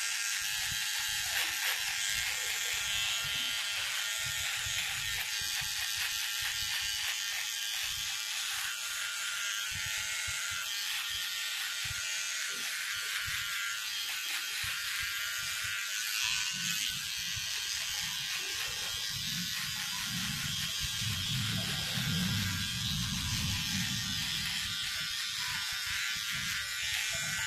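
Red cordless electric hair clipper buzzing steadily while it trims a man's beard. A low rumble joins for several seconds after the middle.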